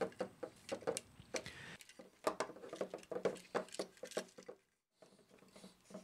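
Faint, irregular clicks and scrapes of a screwdriver turning the wire terminal screws on a USB wall outlet, and of the outlet's plastic and metal being handled as it is fitted into the electrical box.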